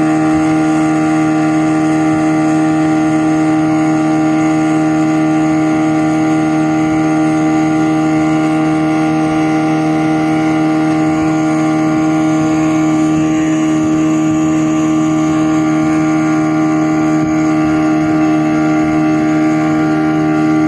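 Yamaha 40 hp outboard motor held at full throttle, a loud drone that keeps one even pitch throughout.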